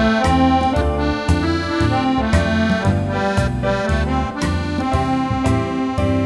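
Accordion playing a sustained melody over rhythmic bass chords that pulse about twice a second.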